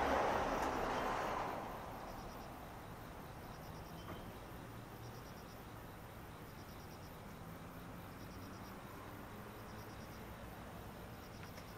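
A broad rushing noise of something passing fades out in the first second and a half. After that, insects chirp in short, rapid, high trills repeating about every one and a half to two seconds over a faint steady background.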